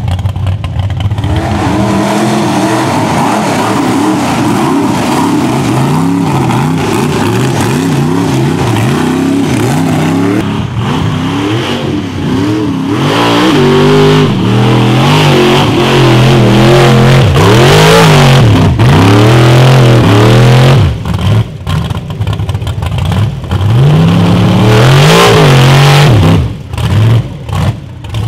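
Big-block Chevy V8 of a rock bouncer buggy revved hard and repeatedly under full throttle, its pitch surging up and falling back in quick bursts as it claws up the hill. It is loudest in the second half, with a few sudden drops in level near the end as the throttle comes off.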